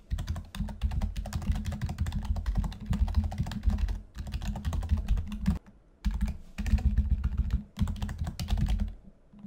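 Fast typing on a computer keyboard: runs of quick keystrokes, broken by a few short pauses.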